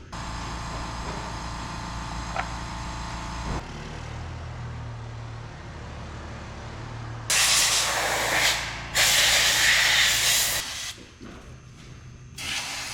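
A steady mechanical hum that changes to a lower hum partway through, followed by two loud bursts of hissing, each about a second and a half long.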